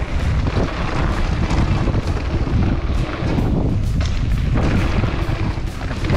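Wind buffeting an action camera's microphone on a fast mountain-bike run, a steady low rumble with rattles and thuds from the bike over the dirt jumps.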